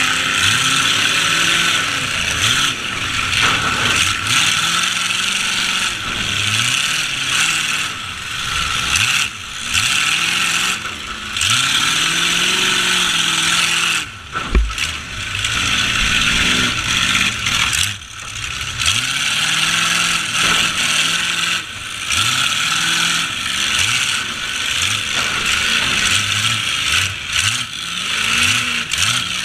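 Demolition-derby truck engines revving up and down over and over, with one heavy crash about halfway through.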